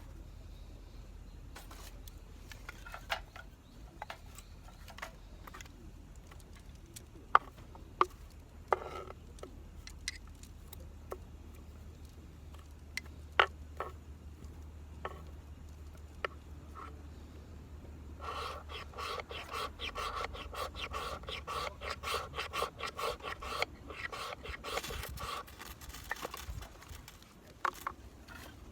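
Scattered light clicks and knocks, then a run of rapid, repeated scraping strokes a little past halfway, followed by a rougher rasp near the end.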